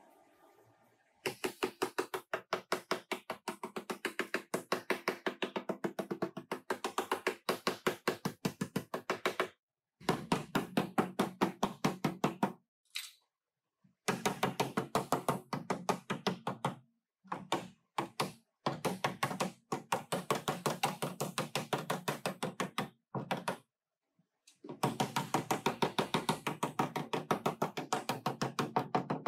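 Rapid, regular hammer blows on the car's steel rear body panel, about five a second, in runs of several seconds broken by short pauses.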